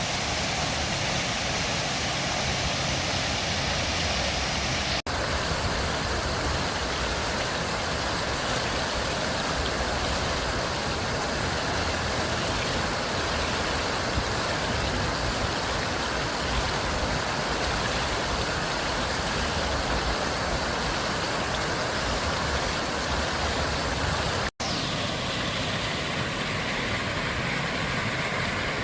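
Water fountain jets spraying and splashing into a basin, a steady rushing hiss, cutting out for an instant twice.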